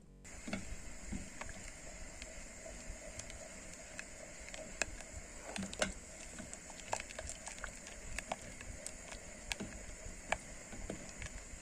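Strawberry jelly mixture stirred in a pot with a plastic spatula: many light, irregular clicks and scrapes of the spatula against the pot over a steady background hiss.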